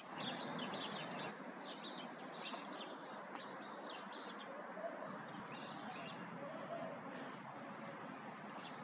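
Small birds chirping in quick runs of short calls, busiest in the first half and sparser after, over a steady background noise.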